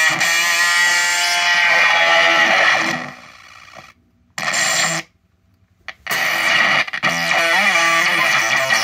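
Electric guitar played through a pair of Ugly Face-style fuzz circuits running in parallel, giving a gritty, synth-like fuzz. The sound fades and cuts out for about two seconds midway, with one short burst, then comes back noisy with wobbling pitches.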